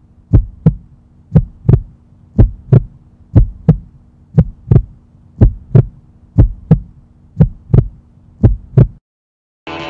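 Heartbeat: pairs of low thumps, lub-dub, about once a second, over a steady low hum. It stops abruptly about nine seconds in.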